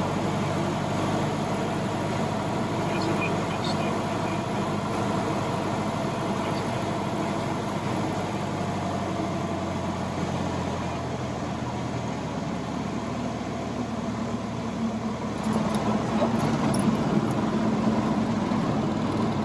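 Cockpit noise of a 1946 Cessna 140 landing: the small four-cylinder piston engine runs steadily under a rush of wind noise as the plane crosses the threshold and rolls out on the runway. The sound shifts about halfway through and grows somewhat louder over the last few seconds, with a few faint clicks.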